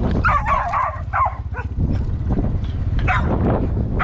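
Excited dog whining and yipping in wavering high cries, a run of them in the first second and a half and another near the end.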